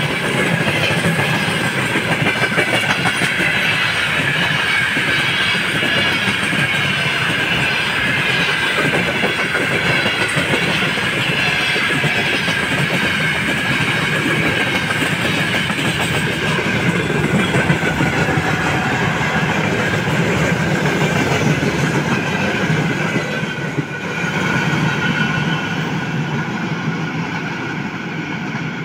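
Freight wagons rolling past at speed: a steady, loud rumble and clatter of steel wheels on the rails. About 24 s in the noise drops and then eases off as the end of the train moves away.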